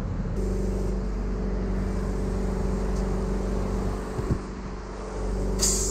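A motor running with a steady low hum that starts abruptly and cuts off just after the end, with a single click partway through and a short hiss near the end.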